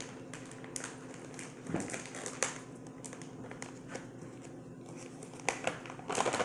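Plastic bag of shredded mozzarella cheese being opened and handled: an irregular run of crinkles and crackles, with a few sharper snaps about two seconds in and again near the end.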